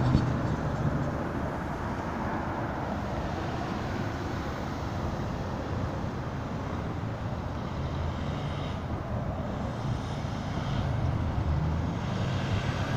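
Steady road-traffic noise with a low engine hum that fades in the first second and returns, a little louder, near the end.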